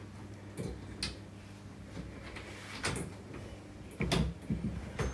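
Scattered light knocks and clunks of wardrobe drawer and shelf parts being handled and fitted, with a louder cluster of knocks about four seconds in.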